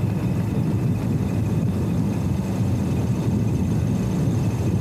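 Steady low rumble of a truck engine idling, with no change in pitch.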